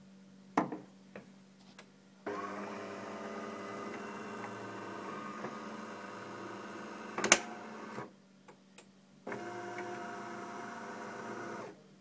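De'Longhi Magnifica bean-to-cup coffee machine running: a steady mechanical buzz starts about two seconds in, with a sharp clack partway through. It stops, then runs again for a couple of seconds near the end. A knock near the start.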